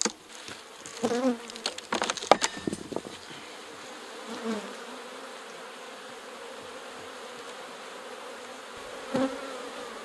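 Honeybee colony buzzing steadily in an opened Langstroth hive, the tone the beekeeper takes as a sign the bees are turning defensive. Several sharp knocks of the wooden hive box being lifted off come in the first few seconds.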